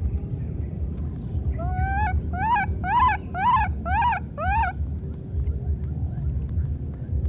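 Baby macaque calling: six short, high squealing calls in quick succession, the first a longer rising note and the rest quick rise-and-fall cries. A steady low rumble runs underneath.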